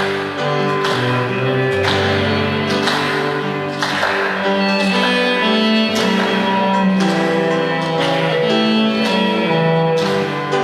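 Cello and piano playing a hymn together: long bowed cello notes carry the melody over struck piano chords.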